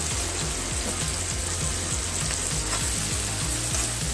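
Chopped onions sizzling in hot oil in a kadai, a steady frying hiss.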